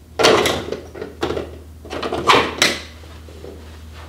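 Golf balls being scooped up with a golf shag bag's pickup tube, pressed down over balls on carpet: a handful of short clacks and scrapes as each ball is forced up into the tube against the balls already inside.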